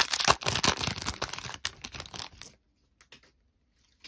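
Foil trading-card pack wrapper being torn open and crinkled: a dense crackling rustle for about two and a half seconds, then it stops, leaving only a couple of faint clicks.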